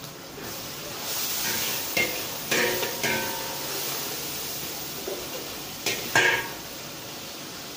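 Metal spatula stirring and scraping a blended chilli, garlic and onion paste sizzling in oil in a large wok. The sizzle swells about a second in, and the spatula knocks sharply against the pan several times, loudest around two and six seconds in.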